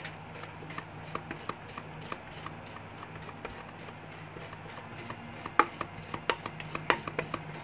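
Metal spoon pressing and scraping a thick powder paste against a stainless steel bowl to crush out lumps: rapid, irregular small clicks and scrapes, with a few louder clinks in the second half, over a faint steady hum.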